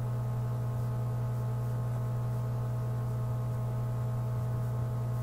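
Steady electrical mains hum in the recording: one low, unchanging drone with fainter higher tones stacked above it.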